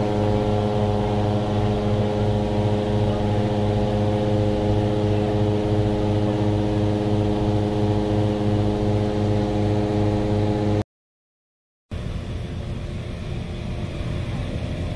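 Engine-driven inflator fan running steadily at a constant speed, blowing cold air into a hot-air balloon envelope during inflation. The sound cuts out for about a second near the end, then a noisier engine-like running resumes.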